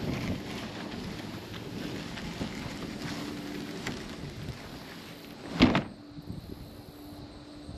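Plastic fishing kayak hull scraping and rustling over grass as it is dragged, growing quieter, then one sharp thump about five and a half seconds in as the kayak is dropped onto the ground.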